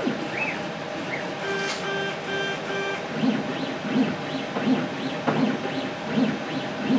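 Automated liquid-handling robot's motors working: a few short pulsed tones, then from about three seconds a quick run of short whirring moves, each rising and falling in pitch, repeating a little more than once a second as the pipetting head cycles.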